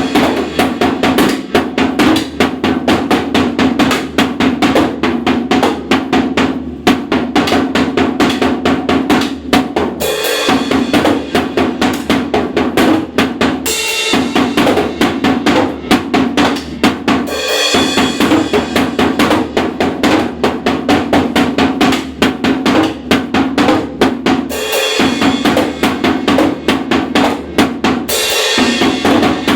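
Drum kit playing a fast, continuous beat with accents every few seconds, used as a countdown timer for the last two minutes of a test.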